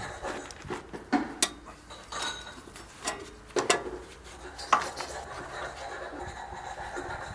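Irregular metallic clinks and knocks of steel parts and tools being handled while the worn pawls in a manure spreader's ratchet feed drive are being replaced.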